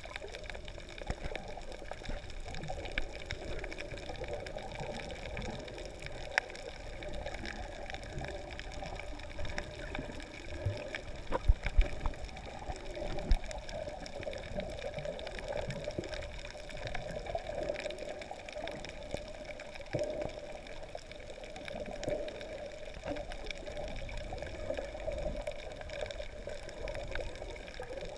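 Muffled underwater ambience heard through a GoPro's waterproof housing: a steady watery wash with scattered faint clicks and a few low thumps about halfway through.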